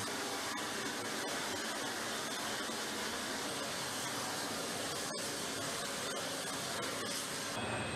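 Steady rushing whine of aircraft turbine noise on an airfield, with a brief break about five seconds in.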